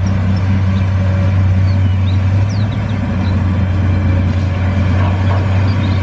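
Engine sound effect of a heavy machine running steadily, a deep even drone. It starts and stops abruptly, as an added effect for a toy excavator.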